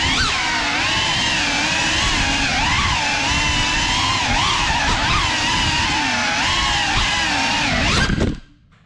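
GEPRC CineLog35 cinewhoop drone's motors and ducted propellers whining, the pitch rising and falling with throttle as it flies. The sound cuts out for about half a second near the end.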